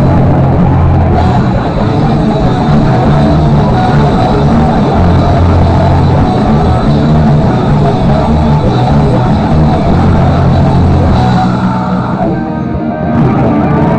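Rock band playing live and loud, with drum kit, bass and guitar. The low end drops out briefly about twelve seconds in, then the full band comes back in.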